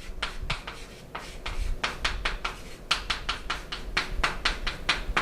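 Handwriting: a quick run of short scratching strokes, several a second, as the problem is written out.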